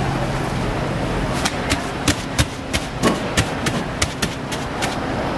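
Plastic-gloved hands slapping and patting a large mass of twisted-doughnut dough on a flour-dusted wooden board: a quick, uneven run of about fifteen sharp slaps starting about a second and a half in, over a steady background noise.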